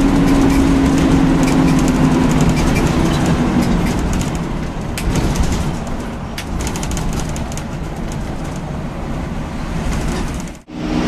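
Intercity bus running at speed, heard from inside the cab: steady engine and road rumble with a hum that fades after the first few seconds, and a few light rattles. The sound drops out abruptly for a moment near the end.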